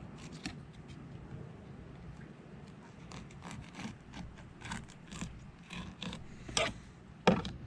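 A boning knife cutting and scraping along a snapper's backbone in short, irregular strokes. Two sharper, louder scrapes come near the end.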